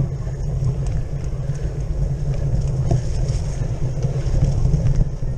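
Wind rush and low rumble of a cyclocross bike ridden fast over bumpy grass, heard from a camera clamped to the handlebars, with a few sharp rattles from the bumps.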